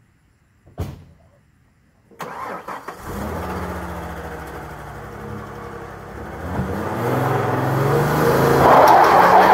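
A single knock, then a Ford pickup's 4.9-litre inline-six cranks briefly and starts, idles, and is revved up harder and harder for a burnout; near the end a loud hiss builds as the rear tyres begin to spin.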